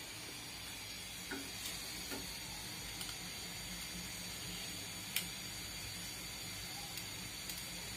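Flower pitha batter on a metal mould frying in hot oil in a steel wok: a steady sizzle, with a few light clicks, the clearest about five seconds in.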